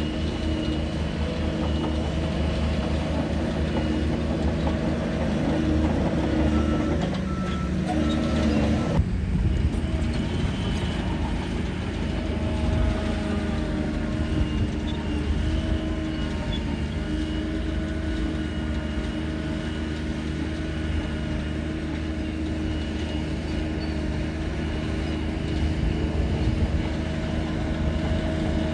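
Shantui DH17 bulldozer's diesel engine running steadily. The sound changes abruptly about nine seconds in.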